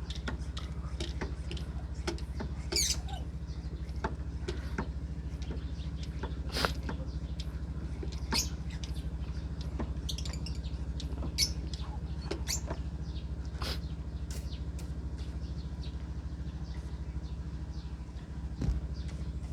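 Lovebirds chirping in short, sharp, scattered calls over a steady low hum.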